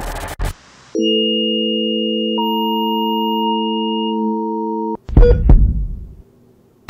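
A steady electronic drone of several pure tones held together, with a higher tone joining about a second and a half in, cutting off abruptly. It is followed by a sudden loud burst of thuds that dies away to near silence.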